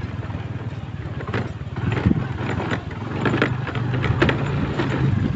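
Motorcycle engine running with a steady low hum under road noise.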